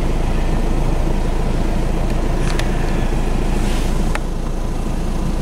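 Car engine idling, heard from inside the cabin as a steady low hum, with a few light clicks about two and a half and four seconds in.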